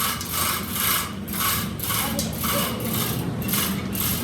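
Rhythmic rasping strokes of a hand tool on metal, about two a second, over a steady low machine hum.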